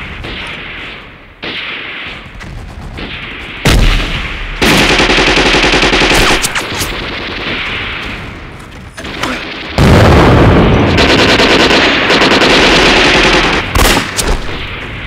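Gunfire: a single loud shot about four seconds in, then a burst of rapid machine-gun fire lasting about two seconds. A second, longer burst of rapid fire starts about ten seconds in and runs about four seconds.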